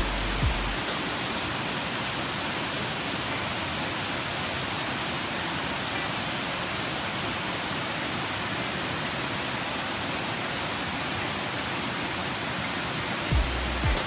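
Mae Ya waterfall's water cascading over rocks: a steady, even rushing noise.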